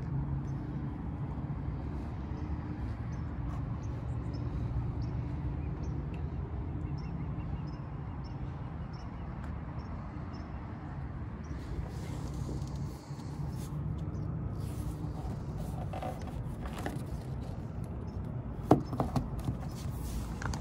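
Isuzu 4JB1-T 2.8-litre turbo-diesel four-cylinder idling steadily. A few sharp knocks come near the end.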